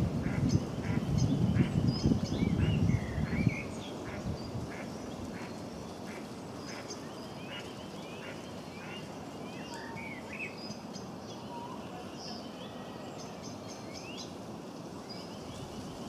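Mallard quacking loudly for the first three seconds or so. Small birds' short, high chirps and calls repeat throughout, over a steady quieter background.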